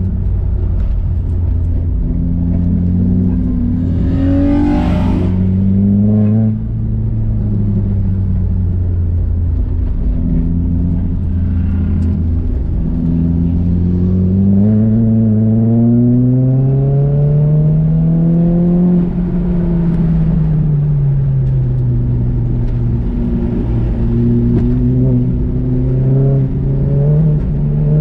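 Nissan Juke's turbocharged 1.6-litre four-cylinder engine being driven hard on a track lap, its pitch climbing and falling as it accelerates and backs off. The pitch drops sharply about six seconds in, climbs steadily to a peak a little past the middle, then falls away before rising again near the end.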